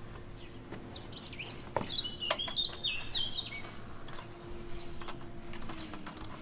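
A small songbird singing a run of short chirps that step down in pitch, from about a second in to past halfway, over a few light clicks of a hand tool tightening the exhaust clamp.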